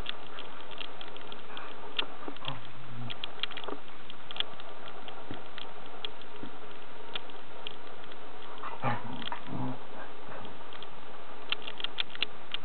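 Dog play-wrestling with a kitten: two short, low play growls from the dog, one about two and a half seconds in and one near nine seconds. Scattered light clicks run throughout.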